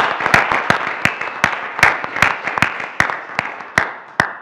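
Audience applauding, with one close pair of hands clapping evenly at about two and a half claps a second over the crowd's dense patter. The applause dies away near the end.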